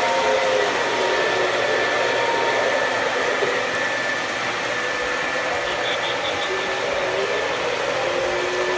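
Model trains running on a three-rail layout: a steady whirring rumble of wheels and motors on the track, with faint steady tones over it.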